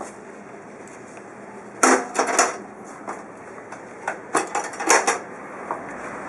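Clattering knocks of hard objects being handled, in two short clusters about two seconds in and between four and five seconds, over a steady hiss.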